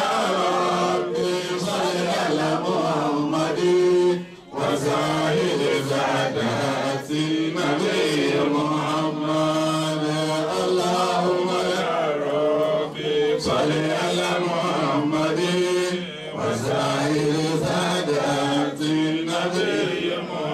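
A man chanting Islamic devotional verses into a handheld microphone, amplified through a sound system. His voice holds long, wavering melodic notes, with a short breath break about four seconds in.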